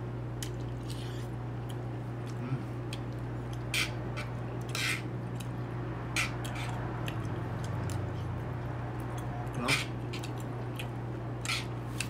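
A person eating from a metal sizzling plate: scattered light clicks and taps of a utensil and mouth sounds, over a steady low hum.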